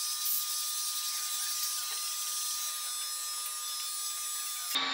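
Engine valve being lapped into its seat in a Mercedes OM651 diesel cylinder head by a power-driven lapping tool: a steady motor whine over a gritty grinding hiss, cut off suddenly near the end.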